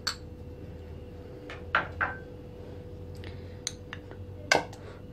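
Steel spoon clinking and scraping against glass and plastic bowls as yogurt and ginger-garlic paste are spooned into a mixing bowl: a few scattered clinks, the sharpest about four and a half seconds in, over a faint steady hum.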